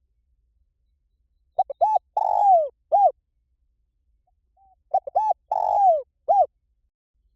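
Spotted dove cooing: two matching phrases about three seconds apart, each two quick coos, then a long falling coo and a last short coo.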